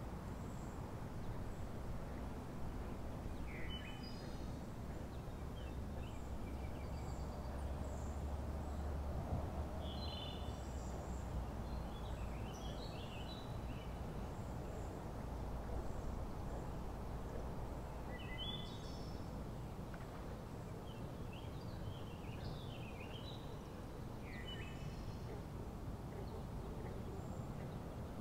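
Lakeside outdoor ambience: birds calling in short chirping phrases now and then, over a steady low rumble.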